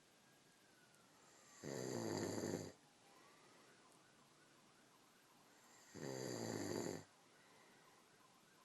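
Snoring: two loud snores about a second long each, some four seconds apart.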